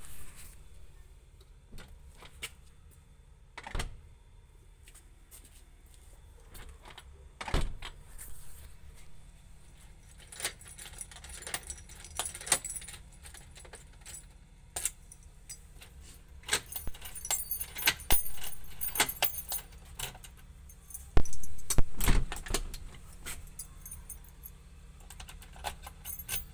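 Keys jangling on their ring while a key is worked in a steel security door's lock cylinder, with a series of metallic clicks and knocks from the lock and lever handle. Jingling is thickest in the middle, and the loudest knocks come about 21 to 22 seconds in.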